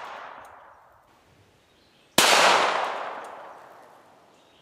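Shot from a .22 LR Ruger Mark II Target pistol: the echo of one report fades out over the first second, then a second sharp crack about two seconds in rings out in a long echo that dies away over about two seconds.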